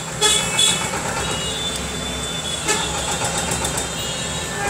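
Motor vehicle engine running steadily, with a horn sounding briefly about half a second in and another starting near the end.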